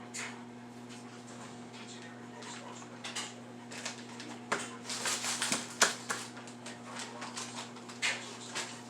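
Light clicks, taps and scrapes of kitchen utensils and dishware being handled, busiest and loudest around the middle, over a steady electrical hum.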